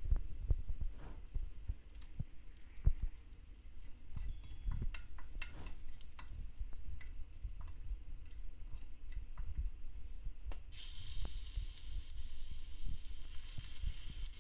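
Wooden spatula knocking and scraping in a wok of hot oil where two dried red chillies are frying. Nearly eleven seconds in, chopped garlic goes into the oil and a hissing sizzle starts suddenly and carries on.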